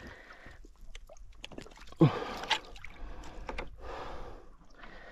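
Water splashing and dripping as a large fish is hauled out of the water by a lip-grip beside a paddleboard and lifted onto the board, with a short grunt about two seconds in.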